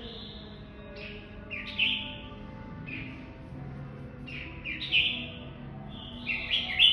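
Red-whiskered bulbul singing short warbled phrases, one every second or two, with the loudest near the end.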